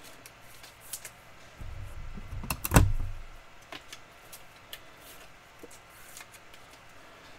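Trading cards and a plastic card holder being handled at close range: scattered light clicks and rustles, with a heavier clatter about two seconds in that ends in one sharp knock near three seconds in.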